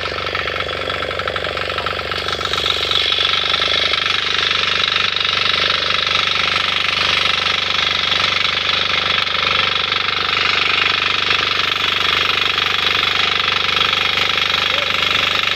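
A 6 hp single-cylinder diesel engine on a walk-behind power weeder runs steadily with a rapid, even beat while its rotor tills the soil. It grows louder about three seconds in.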